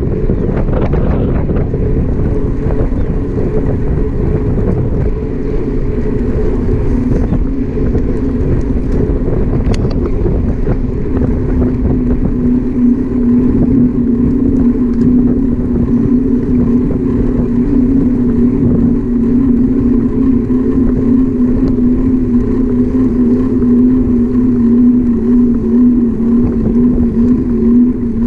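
Wind rushing over the microphone of a camera riding along on a moving bicycle, with a steady hum, likely from tyres rolling on asphalt, that grows stronger about eleven seconds in.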